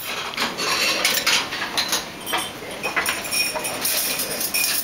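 Crockery and cutlery clinking and clattering: a rapid, irregular series of sharp clicks and clinks, some ringing briefly.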